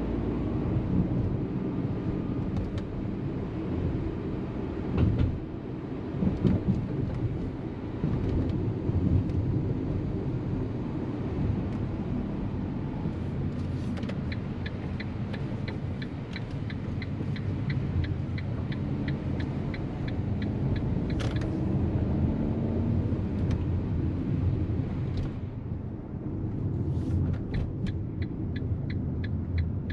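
Inside the cabin of a Fiat Panda with a 1.0 naturally aspirated three-cylinder petrol mild-hybrid engine, driven in town: steady engine and road rumble, with the engine rising in pitch once about two-thirds of the way through. Twice, an even ticking at about three ticks a second runs for several seconds: the turn-signal indicator.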